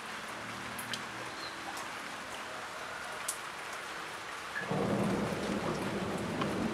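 Steady rain with scattered drips ticking off a roof edge. About two-thirds of the way in, a low rumble of thunder comes in suddenly, louder than the rain, and carries on.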